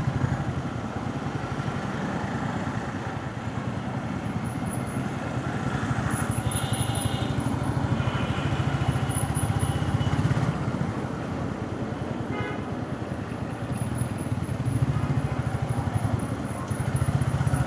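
Motorcycle engine running steadily during a ride through heavy road traffic, with the rumble of other vehicles close around and a few brief pitched tones, like horns, about seven and twelve seconds in.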